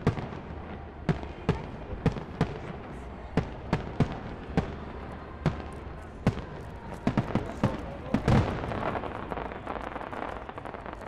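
Fireworks display: aerial shells bursting in a string of sharp bangs, roughly two a second at irregular spacing. About seven seconds in a rapid cluster of bangs leads into the loudest, densest burst, followed by crackling that fades away.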